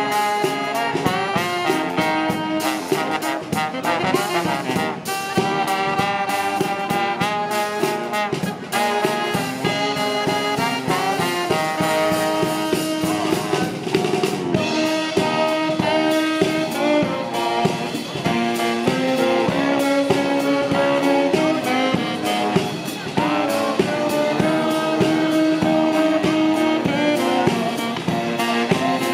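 Music led by brass instruments over a drum kit, with held notes that step up and down in pitch.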